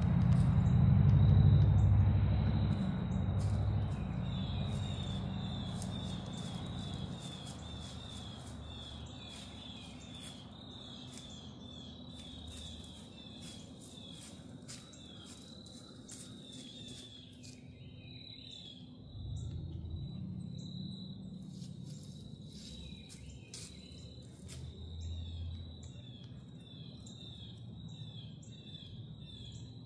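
Crickets chirping steadily in a high, rapidly repeated pulse. A low rumble swells at the start, fades, and comes back about two-thirds of the way through.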